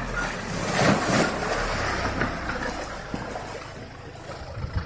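Kia Sorento SUV wading through a muddy puddle: water splashing and sloshing around its bumper and wheels over the engine's low running, with the splashing loudest about a second in.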